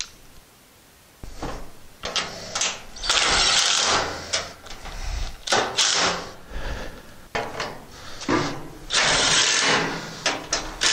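Cordless driver running bolts into the sheet-metal side panel of a grill cabinet, in several short runs with clicks between them; the longest runs come about three seconds in and again near the end.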